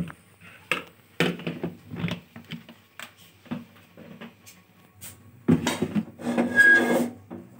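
Scattered clicks and knocks from a large aluminium cooking pot being handled on the stove, with a louder clatter about five and a half seconds in.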